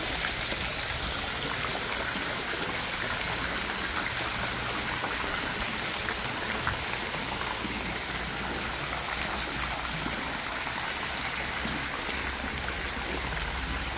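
Swimming pool water jets spraying arcs of water onto the pool surface, a steady splashing and trickling.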